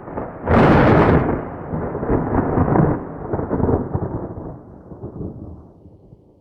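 Thunder: a sharp crack about half a second in, followed by a rolling rumble that slowly fades away.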